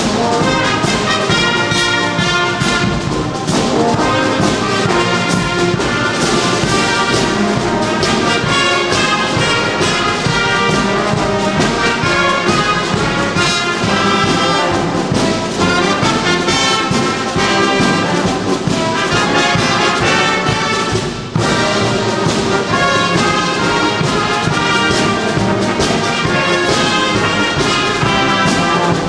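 Youth marching band playing: trumpets, trombones and sousaphone over bass and snare drums, in a large sports hall. The music breaks off for a moment about two-thirds of the way through, then carries on.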